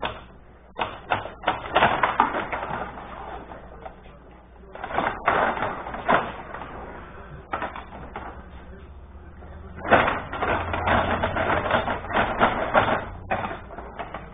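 Clatter of a Benej rod table hockey game in play: the rods sliding and spinning, the figures knocking the puck and the puck rattling against the boards. It comes in three spells of quick clicking and knocking, the longest starting about ten seconds in.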